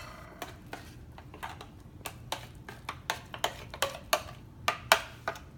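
A kitchen utensil tapping and scraping against a container as hummus is scooped out: a run of light, irregular clicks, with a few louder knocks near the end.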